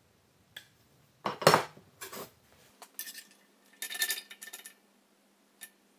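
Thin sheet-steel pieces clinking and scraping as they are handled and fed into a bench press brake. The sound is a string of short metallic clinks and rattles, the loudest about one and a half seconds in.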